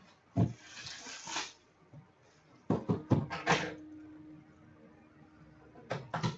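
White cardboard jersey box handled on a tabletop: a short sliding rustle and several knocks and taps as it is turned over, set down and worked at, with a cluster of knocks around three seconds in and a few more near the end.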